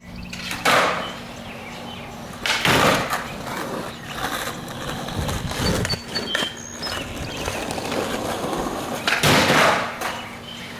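Skateboard rolling and clattering during tricks on a microwave, with loud board impacts about a second in, near three seconds and near nine seconds.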